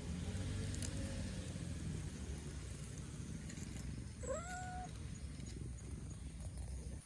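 Cat giving one short meow about four seconds in, rising in pitch and then holding, over a low steady rumble.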